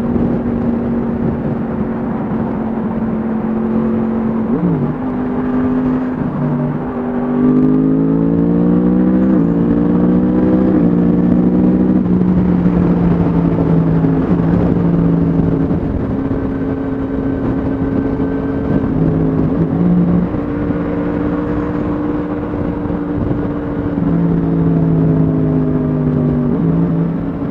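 Yamaha MT-10 SP's crossplane inline-four engine through an Akrapovic exhaust, heard from on board while riding. It accelerates from about seven seconds in, with three quick upshifts, then holds a steady cruise and eases off near the end.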